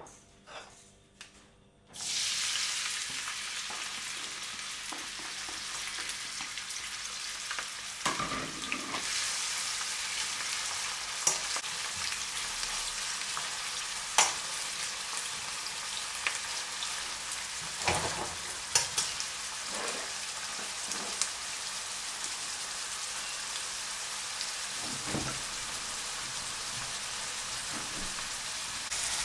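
Chopped red onion sizzling in hot olive oil in a stainless steel frying pan. The sizzle starts suddenly about two seconds in, with occasional clicks of a metal spoon against the pan as it is stirred.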